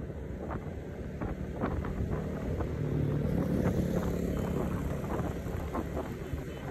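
A vehicle driving along a road: engine and road noise, with wind buffeting the microphone. The engine note swells a little about three seconds in.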